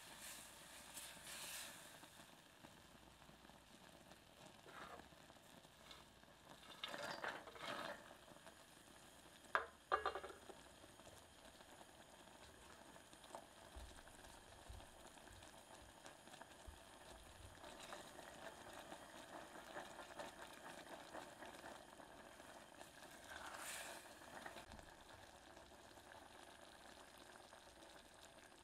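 Caramel mixture of cream, sugar, honey and butter boiling in a small stainless steel saucepan: a faint, steady bubbling sizzle, at the full boil when the walnuts go in. A silicone spatula stirs now and then, with two sharp knocks about ten seconds in.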